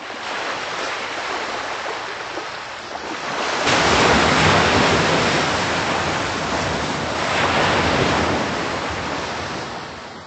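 Rushing wash of ocean waves, with no tones in it, which swells louder a little over a third of the way in and again later on, then fades out.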